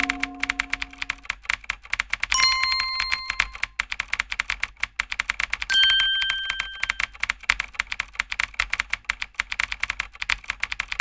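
Rapid, even typing clicks, many a second, with a bell-like ding about two and a half seconds in and another near six seconds, each ringing out briefly.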